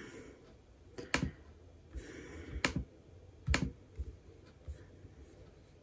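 About five or six sharp, fairly quiet clicks at uneven intervals from tapping on a computer.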